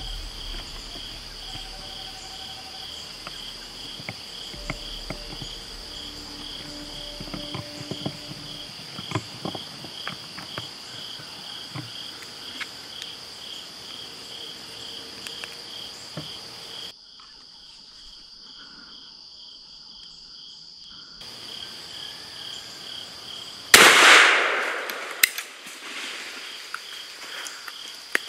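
Insects calling steadily in the background, one with a rapid pulsing chirp. Near the end a single .410 shotgun shot loaded with number 4 shot goes off, by far the loudest sound, its report trailing off over about a second.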